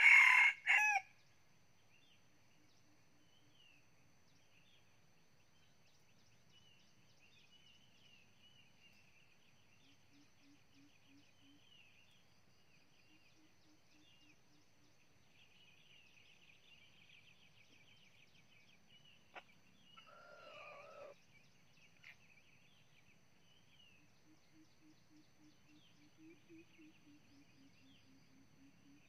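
Red junglefowl rooster crowing once, a short crow in two parts that ends about a second in. Then it is quiet apart from faint high chirping and a brief faint call about 20 seconds in.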